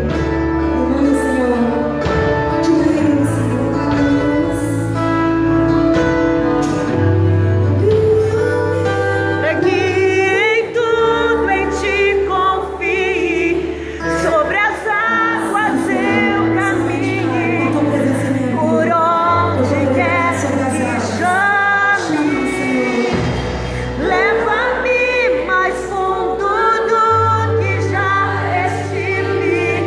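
Live congregational worship music: a band with long held bass notes changing every few seconds, under a singing voice whose held notes waver with vibrato.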